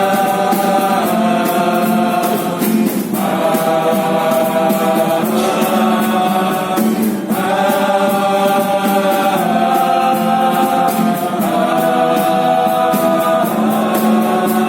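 Choir singing long held chords without words, the chord changing every two seconds or so, over a steady beat in the accompaniment.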